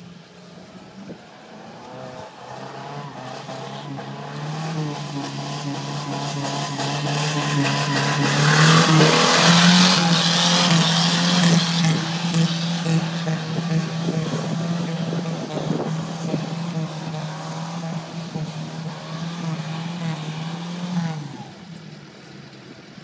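An old car's engine held at high, steady revs as the car labours along a muddy track, growing louder to a peak with a hiss about nine seconds in, then fading. The engine note stops abruptly about 21 seconds in.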